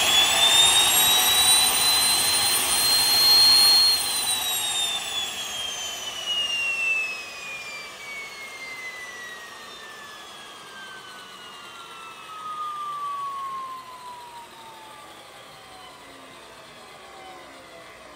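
Solar T62-32A small gas-turbine engine whining at high speed at the top of a start cycle, with the whine holding steady for a few seconds. It then winds down, the pitch falling steadily and the sound fading as the engine spools down.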